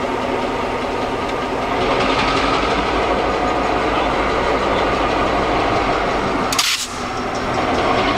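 EMD GP38 diesel-electric locomotive, with its 16-cylinder two-stroke diesel, running as it pulls slowly ahead from a stop. The engine grows louder about two seconds in as it takes load. A brief hiss cuts in about six and a half seconds in.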